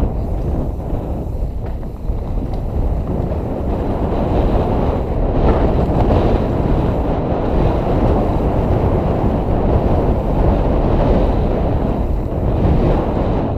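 Wind buffeting the microphone of a mountain biker riding down a trail, a loud steady rumble with the bike's tyre and trail noise underneath.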